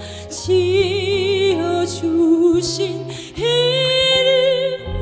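A slow, sad trot song. A melody is held in long notes with a wide vibrato: one note for about three seconds, then a higher held note, over a soft, steady bass accompaniment.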